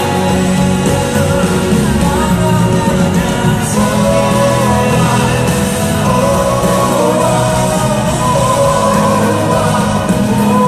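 Pop-rock band playing live, with a sung vocal line held over a steady, loud backing.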